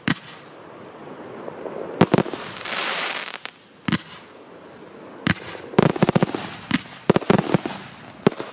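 Fireworks batteries firing: a bang as it begins, more single bangs, and a loud hissing rush of comets launching in the middle. In the second half comes a rapid string of bangs and crackles.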